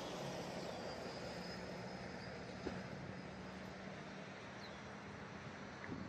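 A heavy vehicle's engine drones steadily as it passes on the road, fading about five seconds in, with a few faint high bird chirps near the end.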